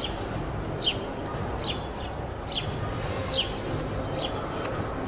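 A bird repeating a short chirp that slides downward in pitch, evenly about once a second, over a low steady rumble.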